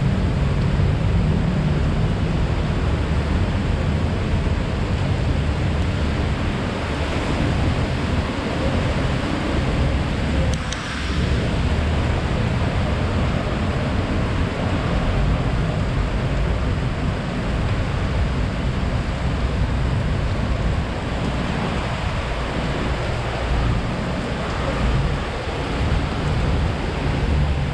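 Typhoon wind blowing steadily and buffeting the microphone, a continuous rushing noise with heavy low rumble, easing briefly about ten seconds in.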